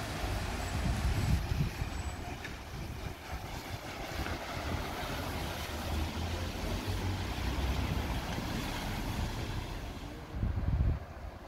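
City street ambience: a steady wash of noise with a strong, fluctuating low rumble. About ten seconds in, the higher sounds fall away and a brief louder low rumble follows.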